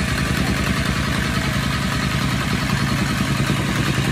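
Engine-driven tamping rammer (jumping jack compactor) running and pounding a dirt floor with a rapid, even stream of thuds.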